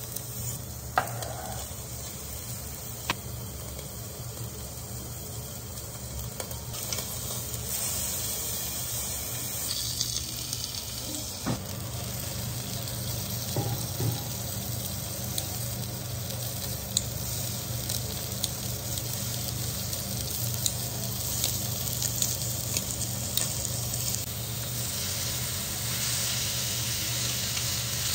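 Thick slabs of pork belly and pork shoulder sizzling on a round electric grill plate, with sharp clicks here and there from metal tongs and kitchen scissors as the meat is turned and cut.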